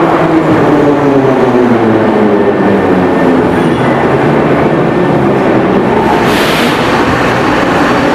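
Moscow metro train pulling into an underground platform and slowing to a stop, loud, its motor whine falling in pitch over the first few seconds. A short hiss comes about six seconds in.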